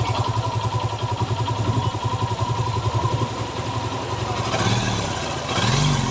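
Suzuki Gixxer SF 150's single-cylinder engine idling with an even pulse after its camshaft bearing repair, then revved briefly twice in the last second or two.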